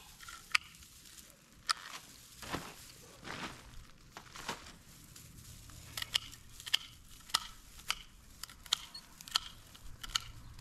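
Hand pruning shears snipping through dry plant stems, a series of sharp clicks about one every half second to second, with rustling of cut foliage in between.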